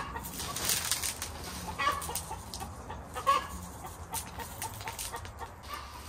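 Granules scooped by hand from a plastic coffee can and scattered onto the soil of potted cuttings, with light rattling and pattering. Short bird calls sound in the background, the loudest about three seconds in.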